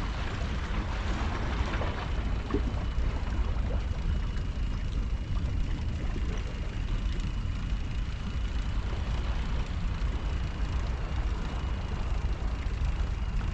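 Steady low rumble of wind buffeting an action-camera microphone outdoors, with a faint steady high whine through most of it.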